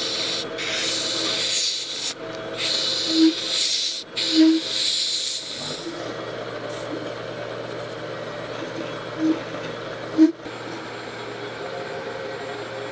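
Lathe spinning a resin blank while a turning tool cuts it: a loud scraping hiss in several passes with short breaks for the first half, then the lathe running on with only light cutting and a low steady hum.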